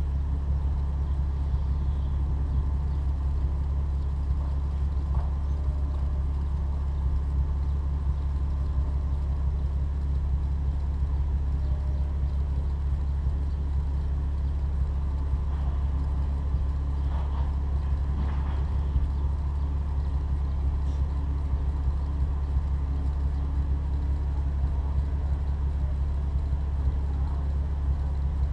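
Opel Insignia OPC's turbocharged 2.8-litre V6 through its stock exhaust, running at a steady low, even drone with no revving.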